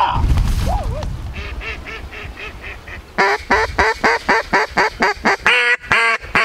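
Echo Arkansas-style single-reed mallard duck call blown at a flock: a string of soft quacks, then from about three seconds in a loud, quick run of about a dozen quacks, roughly three a second.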